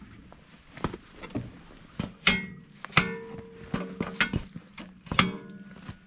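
A series of irregular knocks and clanks of hard objects being handled, about a dozen in six seconds, several leaving a brief ringing tone.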